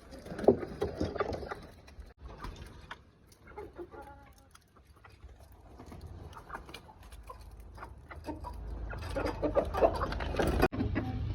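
Chickens clucking, short irregular calls, busier in the first second or so and again near the end.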